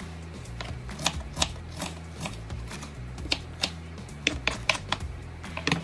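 Knife dicing a red onion, about a dozen sharp taps at an uneven pace as the blade strikes the cutting surface. Background music with a steady bass line plays throughout.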